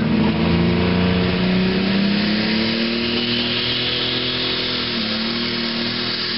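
Pulling tractor's engine at full throttle under heavy load as it drags the weight sled, its note rising slightly over the first few seconds and then holding steady.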